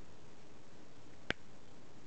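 Leatherman Juice CS4 multi-tool giving a single sharp click about a second in as its handles are swung open to bring out the pliers; otherwise only a faint steady hiss.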